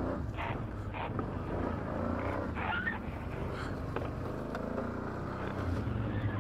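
ATV engine running steadily, a low even drone.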